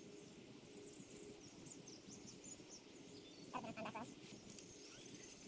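Lakeside insects droning steadily, with a short pitched call about three and a half seconds in.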